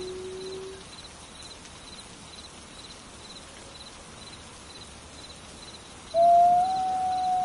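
Wolf howling: a low, steady note that ends about a second in, and near the end a second, higher howl that starts suddenly and holds its pitch. A cricket chirps about twice a second throughout.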